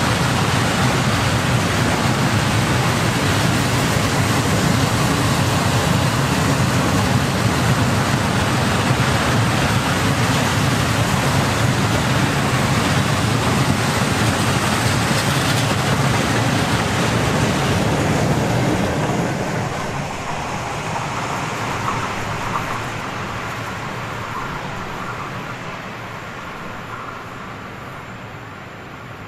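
A long freight train of high-sided open wagons rolling past, with steady wheel-on-rail noise. A little past halfway the last wagon goes by and the sound fades away.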